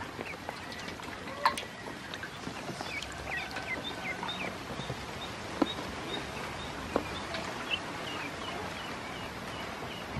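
Ducklings peeping: many short, high chirps repeated over and over, with a few sharp knocks and small splashes in the water bowl, the loudest about a second and a half in.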